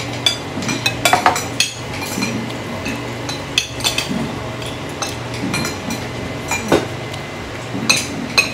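Cutlery clinking and scraping against plates and a metal grill pan during a meal, irregular light clicks every second or so, over a steady low hum.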